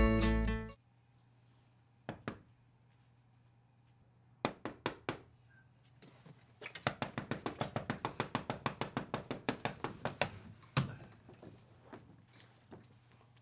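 Acoustic guitar music cuts off in the first second. Then typing on a laptop keyboard: a few scattered keystrokes, a short burst, then a long run of rapid, even keystrokes. It ends with a single louder thump and a few faint knocks.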